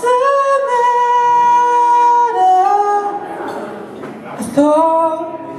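A man singing live with acoustic guitar accompaniment: one long held note for about two seconds that drops to a lower note, then a new sung phrase begins near the end.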